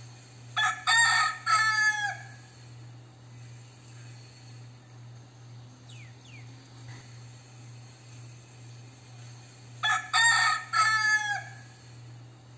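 Crossbred gamecock rooster crowing twice, about nine seconds apart; each crow is a few short notes ending in a drawn-out note that falls at the end.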